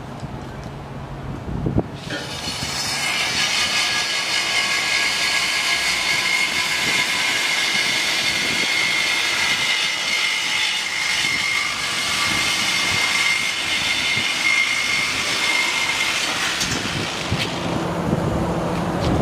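Air-powered cutting tool running steadily with a high whine and hiss as it cuts through a car's exhaust pipe, starting about two seconds in and dying away near the end.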